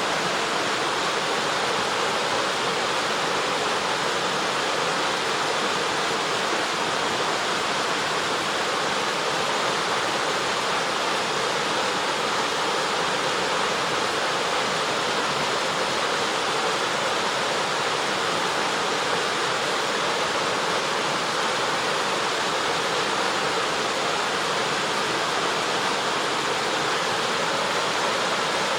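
Waterfall pouring into a large, deep plunge pool, a steady even rush of falling water.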